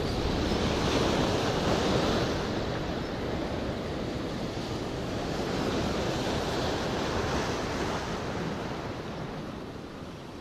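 Sea surf breaking and washing over breakwater rocks, swelling twice and easing off near the end.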